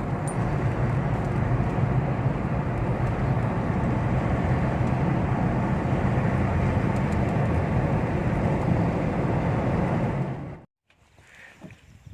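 An engine running steadily. It cuts off abruptly about ten and a half seconds in, and a few faint knocks follow.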